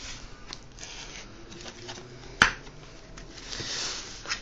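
Scissors working at a sealed mail parcel: rustling and scraping of the packaging with small clicks, and one sharp snap about two and a half seconds in.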